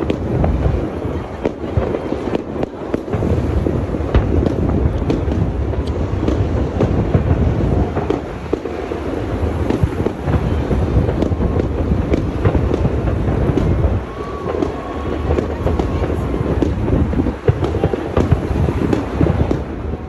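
Fireworks display: a dense, continuous barrage of deep booms and sharp cracks, easing briefly twice in the second half, with a short whistle about halfway through.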